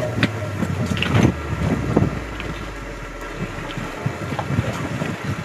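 Sea and wind noise aboard a small fishing boat, with a low steady hum that stops about four seconds in and a few scattered knocks and clatters.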